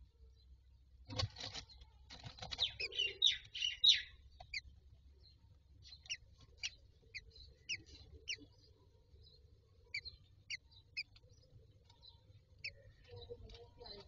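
Newly hatched common myna chicks peeping in a series of short, high notes, about two a second with pauses, while the adult myna bends over them in the wooden nest box. Before that, about a second in, come scratchy rustling in the straw nest and a quick burst of chirps as the adult settles in.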